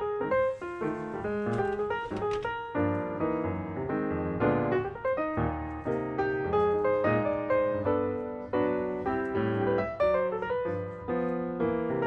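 Background piano music, a lively run of notes.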